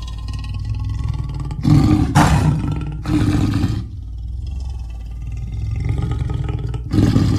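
Big-cat sound effect meant as a cave leopard: a drawn-out low growl, broken by loud short roars about two and three seconds in and again near the end.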